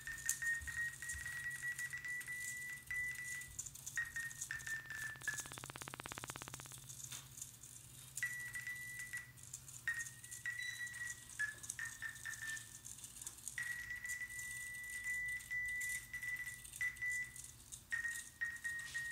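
Smartphone distance tone: a steady high beep whose pitch shifts slightly with the distance an ultrasonic sensor reads, stopping and starting again several times. Light clicks run through it, and about five seconds in the tone gives way to a fast buzz for about a second and a half.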